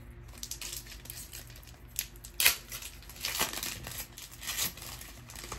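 Foil wrapper of a Pokémon TCG booster pack being torn open and crinkled, a run of irregular crackles with the sharpest about two and a half seconds in.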